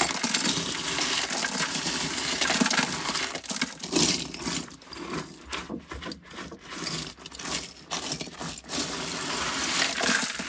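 Small pieces of shattered tractor-cab window glass clinking and rattling as they are poured and cleared out of the cab and its window seal.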